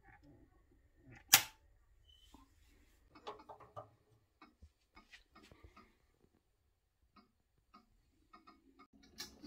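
Handling clicks as an electric oven is plugged in and switched on, with one loud sharp click about a second and a half in, then a cluster of clicks and light knocks as a gas hob knob is turned off. Scattered faint ticks follow, and there is another click near the end.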